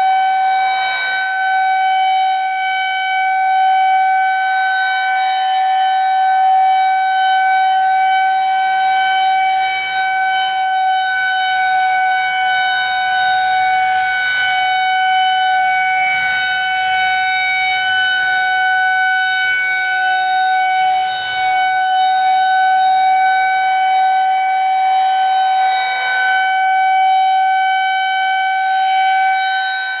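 Federal Signal 2001-130 rotating electromechanical outdoor warning siren holding a steady single tone during a monthly test. Its loudness swells and dips slightly as the horn turns.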